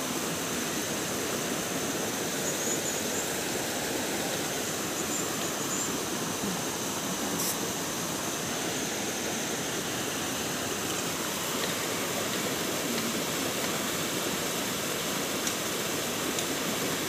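Steady rush of flowing river water: a continuous, even wash of noise with no rise or fall.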